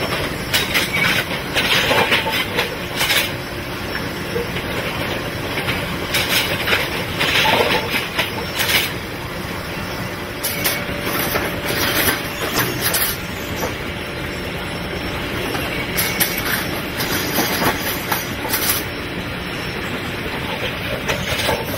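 Track-renewal machine working along the rail: a steady machinery noise with irregular bursts of metallic clanking and noise coming and going, as it lays concrete sleepers and rail.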